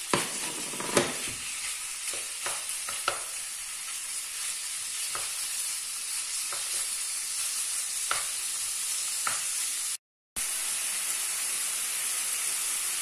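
Strips of pork sizzling as they sear in hot oil in a frying pan. A steady high hiss runs throughout, broken by occasional sharp clicks of a wooden spoon against the pan as the meat is stirred. The sound drops out for a moment about ten seconds in.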